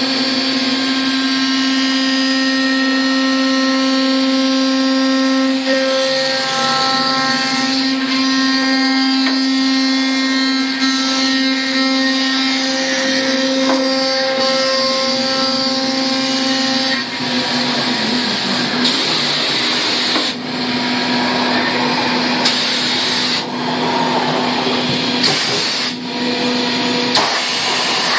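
5-axis CNC machine machining a part on its first run: a steady machine whine made of several held tones that shift from time to time. About 17 seconds in, most of the tones stop and a hiss with abrupt starts and stops takes over, still over the machine's low hum.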